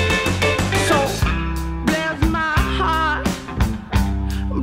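Background music: a rock song with a steady drum beat, bass, guitar and a singing voice.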